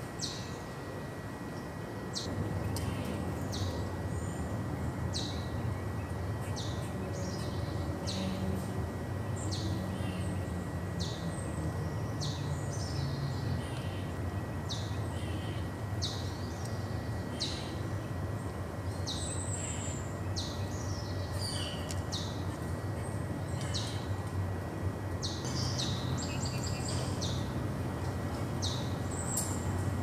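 Small songbirds calling around a seed feeder: short, high chip notes that fall in pitch, roughly one a second, with a few longer chirps. Underneath, a steady low rumble grows louder about two seconds in.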